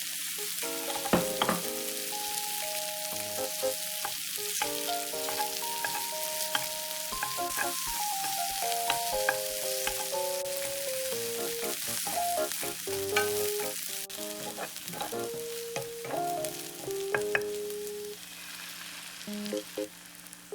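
Egg tteokbokki sizzling in a pan, a steady frying hiss with a few clicks of a utensil stirring it, which eases off near the end. A light background music melody plays over it.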